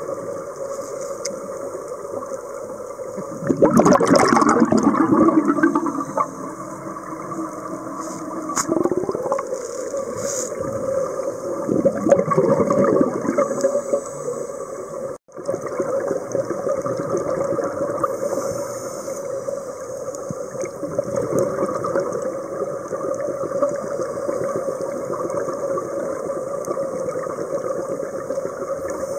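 Underwater sound on a scuba dive: a steady hum under water, broken by louder bursts of bubbling from a diver's exhaled regulator breaths. The longest and loudest burst comes about three and a half seconds in, with shorter ones around nine and twelve seconds.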